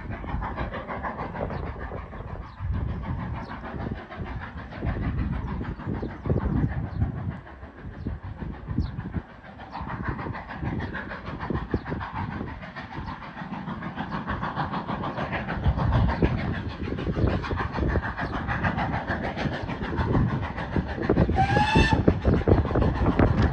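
Steam-hauled train running, with a rapid, uneven rhythm of beats and rail noise that grows louder toward the end. One short whistle blast sounds near the end.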